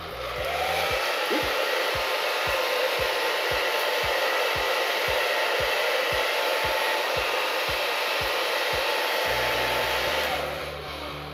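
Hand-held hair dryer blowing on its cool setting, a steady rushing whoosh. It comes up about a second in and dies away near the end.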